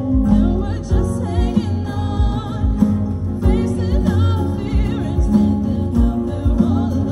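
Live band playing through a PA: a singer with vibrato over guitars, bass, keyboard and a steady kick drum.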